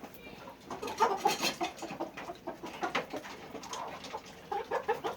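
Domestic fowl calling in a run of short, quick calls, loudest about a second in and again near the end.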